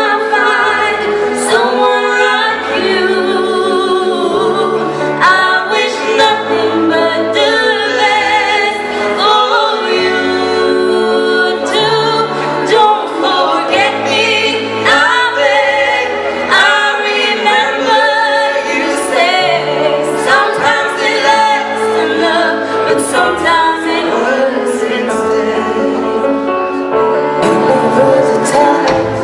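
A woman and a man singing a duet live into microphones over instrumental accompaniment, their long held notes wavering with vibrato above a bass line that steps from note to note.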